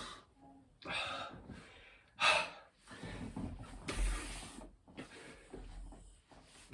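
A man breathing hard from exertion between burpee reps: a series of loud, gasping breaths about a second apart, with a dull low thump about four seconds in.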